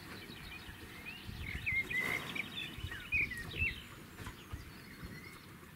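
A small songbird singing a quick, twittering phrase of chirps and whistles for a few seconds, over a low outdoor rumble.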